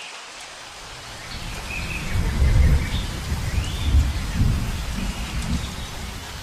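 Steady rain with rolling thunder that swells about two seconds in and peaks twice, with a few faint high chirps above it.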